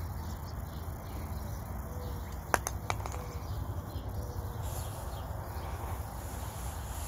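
A few sharp clicks about two and a half seconds in, over a steady low rumble.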